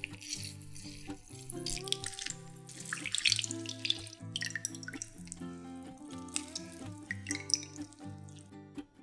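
Fresh orange juice squeezed by hand, splashing and trickling into a glass bowl with wet squelching from the fruit, loudest in spells around three and seven seconds in. Soft background music plays throughout.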